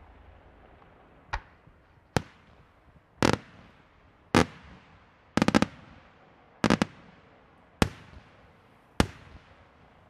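Aerial firework shells bursting in separate sharp bangs about once a second. A quick run of four or five bangs comes about five and a half seconds in.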